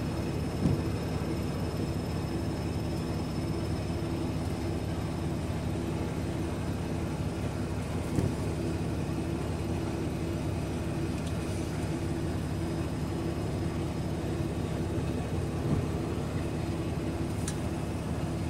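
Semi-truck diesel engine idling steadily, heard from inside the cab, with an even hum.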